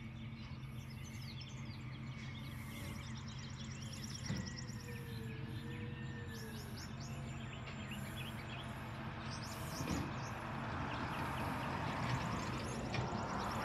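Steady low hum of a distant Peterbilt garbage truck's diesel engine working down the street, with birds chirping over it. A rushing noise grows louder from about ten seconds in.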